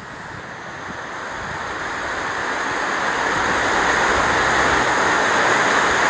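Rushing of a multi-tiered waterfall pouring down a sloping rock face, a steady dense noise that grows steadily louder.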